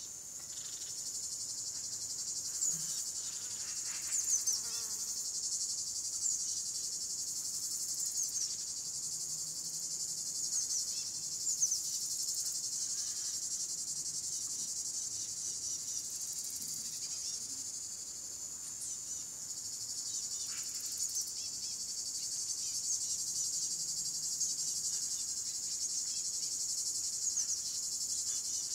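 Dense chorus of crickets chirring: a steady high shimmer with many short chirps scattered through it.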